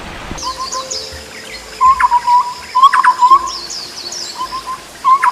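Several birds calling: clusters of short, quick repeated notes, with sharp louder calls about two and three seconds in, over thinner high chirps.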